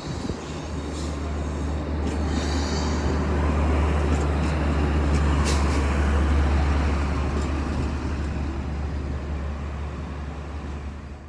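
Irish Rail 2600 Class two-car diesel multiple unit passing slowly, its diesel engines giving a deep, steady drone under the rolling noise. The sound builds to its loudest about halfway through, then fades as the train moves away.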